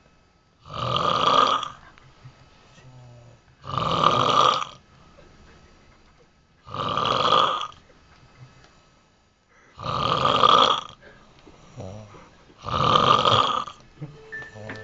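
A sleeping person snoring loudly: five long snores, each about a second long, coming about every three seconds.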